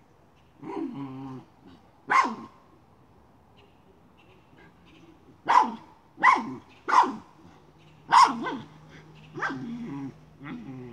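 Miniature schnauzer barking sharply at a chipmunk hiding in a plastic pipe: one bark about two seconds in, then a quick run of four more and a weaker last one, with low growling between the barks.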